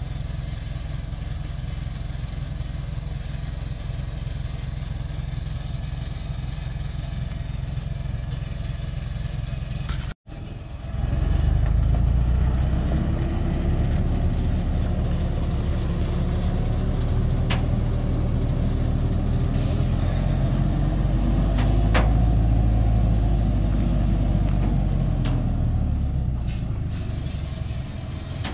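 Engine of a heavy truck loaded with logs, driving on a dirt track: a steady drone at first, then, after a sudden cut about ten seconds in, louder, its pitch rising and falling as it pulls, with a few sharp clicks or knocks.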